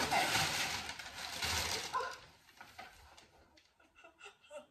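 Crumpled brown packing paper rustling and crinkling as it is handled in a cardboard box, for about two seconds, then quieter scattered rustles and taps on the box.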